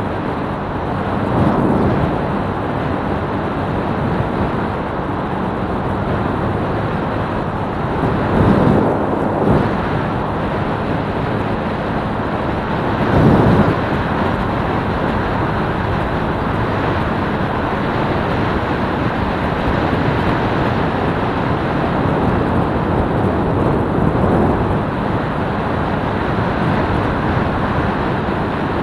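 Small motorcycle engine running steadily while riding, under heavy wind rush on the microphone that swells briefly several times.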